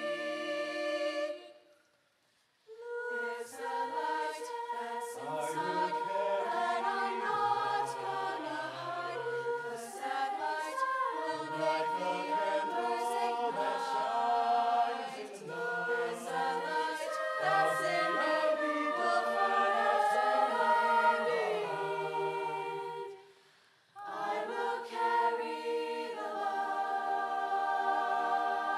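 High school show choir singing in harmony, unaccompanied. The singing stops briefly twice: once about two seconds in and again near twenty-four seconds.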